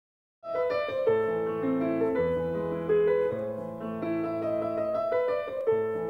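Intro music: a piano melody over held bass notes, starting about half a second in after silence.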